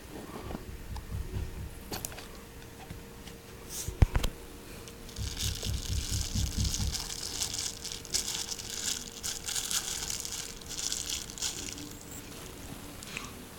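Plastic packaging being handled, crinkling and rustling, with a couple of sharp knocks about four seconds in; the crinkling is heavier from about five seconds until near the end.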